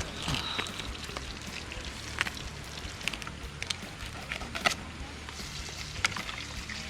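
Fish cooking in a hot pan, crackling and sizzling with scattered sharp pops over a low steady hiss, just after the stove has been switched off.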